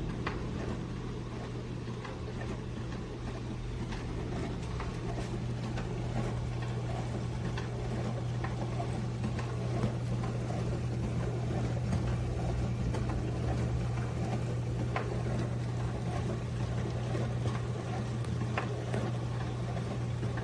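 Countertop dishwasher running: its motor hums steadily and low, with a few faint ticks.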